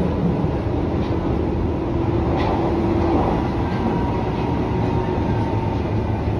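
Berlin U-Bahn train running, heard from inside the car: a steady rumble of wheels on the rails. A motor whine stops about three seconds in.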